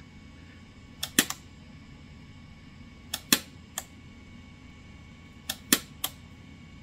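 Switch toggle of a one-module Hager arc fault detection device (AFDD) pushed closed onto a live series arc fault three times. Each try is a quick cluster of two or three sharp snapping clicks as the breaker latches and trips straight back open, showing that it detects the arc and will not stay on.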